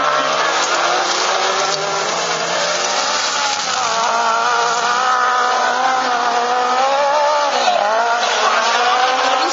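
Several autocross special-cross buggies racing on a dirt track. Their engines rev up and down over one another without a break.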